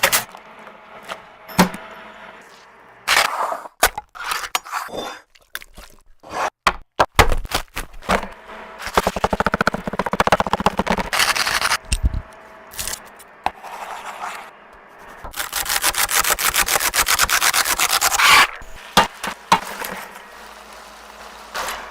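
Repeated scraping and rubbing strokes. They come in two fast, even runs: one in the middle and a longer one near the end. Between them are scattered sharp cracks and knocks.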